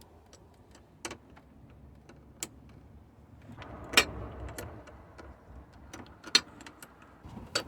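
A wrench working a 12 mm nut: scattered light metal clicks and clinks, the sharpest about 4 and 6 seconds in, with some handling rustle between them.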